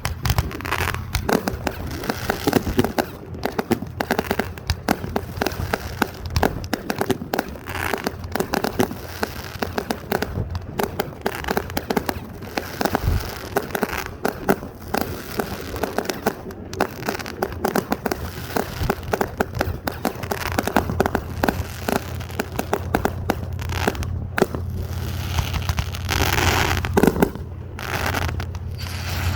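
Fireworks crackling and popping in a rapid, continuous stream of many small reports each second, with a louder flurry near the end.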